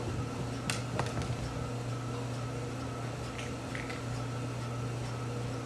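Steady low hum like a fan or air conditioner, with a few light clicks or taps about a second in and two softer ones later.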